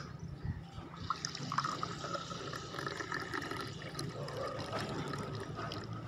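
Kahwa (herbal tea) being poured into a glass mug, starting about a second in: a steady splashing stream as the mug fills and froths with bubbles.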